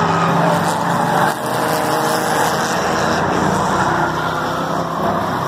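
Several race car engines running at once, their pitches rising and falling as the cars speed up and slow down around the track.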